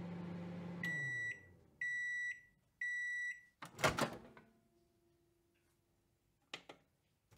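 Microwave oven finishing its cycle: its running hum winds down and drops in pitch, then it gives three high, evenly spaced beeps about a second apart. About half a second after the last beep comes a loud clunk as the door is opened, followed near the end by a couple of faint clicks.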